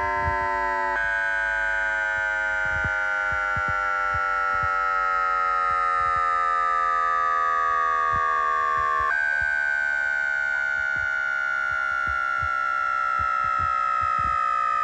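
Electric whine of a Z 50000 Francilien train's traction motors and inverters: several tones glide slowly down in pitch as the train slows, with sudden steps in the pitch about a second in and about nine seconds in. Scattered faint clicks underneath.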